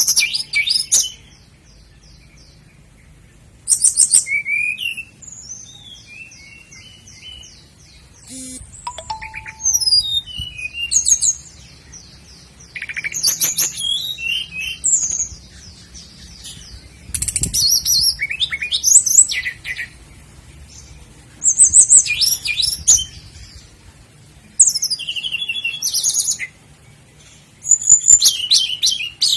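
Common nightingale singing: loud, separate phrases of rapid repeated notes, trills and whistles, each a second or two long, with short pauses between them.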